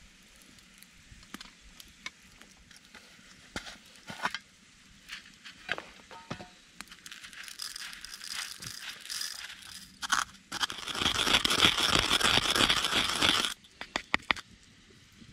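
Handling noise: scattered light clicks and crackles, then a loud crinkling rustle lasting about three seconds near the end, followed by a few more clicks.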